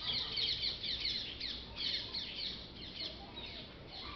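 Small birds chirping in a fast, dense run of short high notes that thins out and fades near the end.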